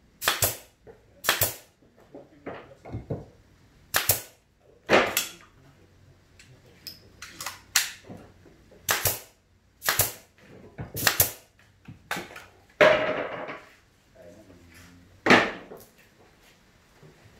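Pneumatic brad nailer firing F-series brads into a plywood speaker cabinet: a dozen or more sharp shots at irregular intervals, some in quick pairs. One longer, noisier sound comes about two-thirds of the way through.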